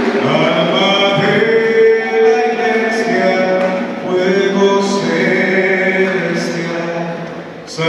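Women's voices singing a Spanish-language worship song at a praise service, with some long held notes.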